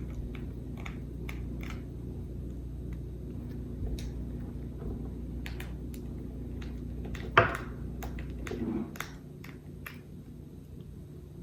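Scattered light clicks and taps of a small Phillips screwdriver and tiny screws as the bottom screws are backed out of a spinning reel's body, with one sharper click about seven seconds in.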